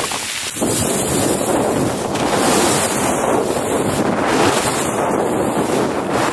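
Heavy wind rushing over the microphone of a low-mounted action camera during a downhill ski run, mixed with the hiss of skis sliding on snow. The rush drops briefly about half a second in, then comes back at full strength.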